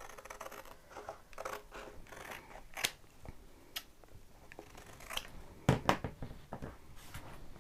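Scissors cutting apart a plastic mesh stencil sheet: a series of short, separate snips. A couple of louder knocks come about three-quarters of the way through.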